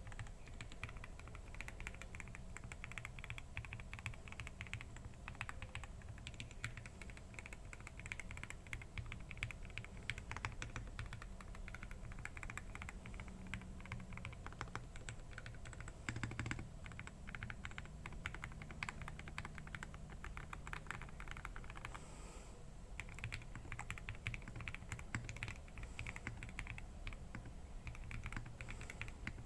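Fast, continuous typing on a Tiger 80 mechanical keyboard: lubed SP-Star Meteor White switches in a PC plate with a leaf-spring gasket mount, under Cherry-profile PBT keycaps. The typing pauses briefly a little past three-quarters of the way through.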